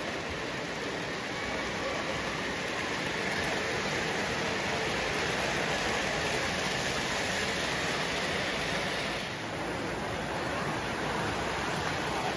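Steady whirring rumble of O-gauge three-rail model trains running along the layout's track. It drops briefly about nine seconds in.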